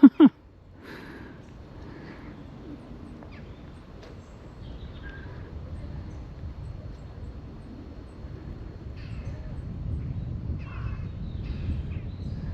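Crows cawing a few times in the distance, over a low rumble that grows louder toward the end.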